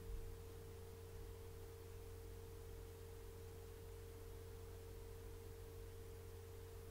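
A faint steady drone: one pure tone held at a single pitch over a low hum.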